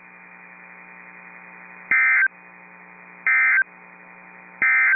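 Emergency Alert System end-of-message signal: three short, identical bursts of SAME digital data tones, about 1.4 s apart, marking the end of the alert. A steady low hum runs underneath.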